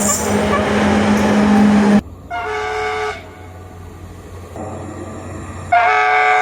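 Noise of a running train with a steady low hum, cut off abruptly about two seconds in. Then a train's multi-tone horn sounds two short blasts, each a chord of several notes, about three seconds apart, the second near the end.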